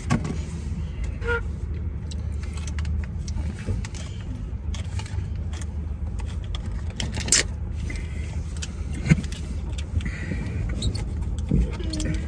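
Steady low hum of a vehicle at rest with its engine running, heard inside the cabin, with scattered small clicks and rustles as food and its packaging are handled; the sharpest clicks come about seven and nine seconds in.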